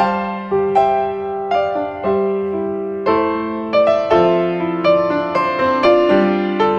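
Background piano music: a slow, gentle melody of struck notes and chords, each fading before the next.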